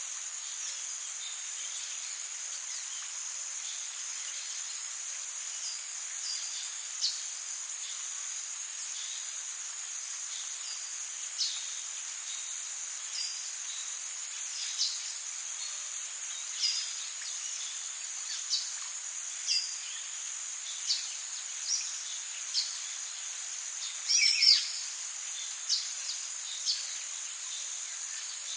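Tropical rainforest ambience: a steady high-pitched insect drone, with short bird chirps every second or so and one louder call that falls in pitch late on.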